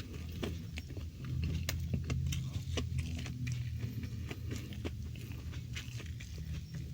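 Close-miked chewing and biting of crispy fried food, with many short crunches and mouth clicks over a low steady hum.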